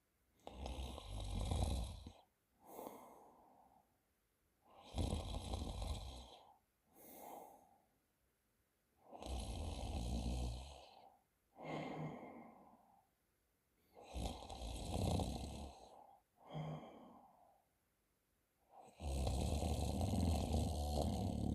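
A man snoring loudly in his sleep: five long, deep snores about every four to five seconds, each followed by a shorter, quieter breath.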